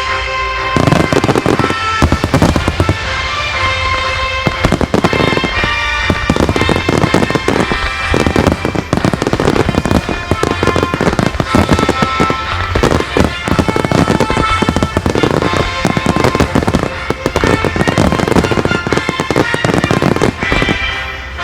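A dense, continuous barrage of firework shells bursting, many sharp bangs in quick succession from about a second in, over loud music with a melody.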